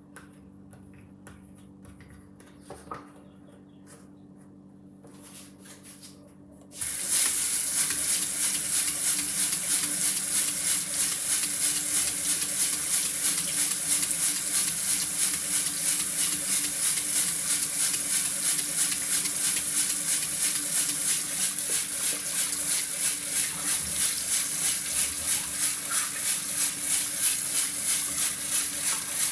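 Bathroom sink tap turned on about seven seconds in, water then running steadily into the basin.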